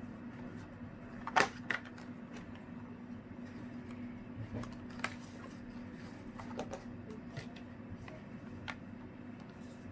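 Scattered light clicks and taps, the loudest about a second and a half in, over a faint steady low hum.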